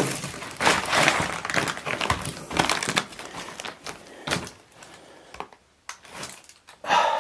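Footsteps crunching and crackling through a decayed basement floor that gives way underfoot. The crunching is dense for about the first three seconds, then thins to scattered snaps and knocks.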